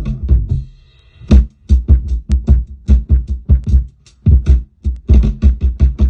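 Sampled drum break played through the Waves OVox vocal re-synthesis plugin: loud, fast kick, snare and hi-hat hits that drop out briefly about a second in and again near five seconds.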